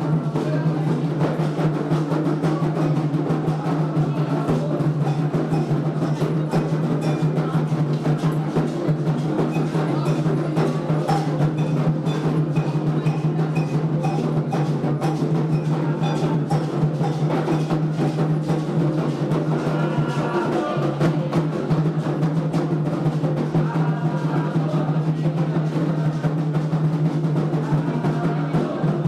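Ceremonial atabaque hand drums playing a fast, continuous rhythm, with faint singing voices joining in around the middle and near the end.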